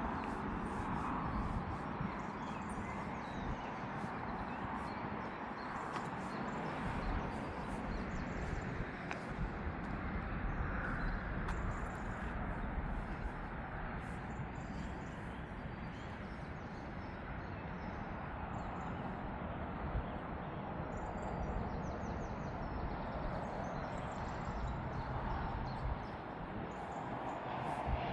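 Steady outdoor background noise with a low rumble, and faint bird chirps in the second half.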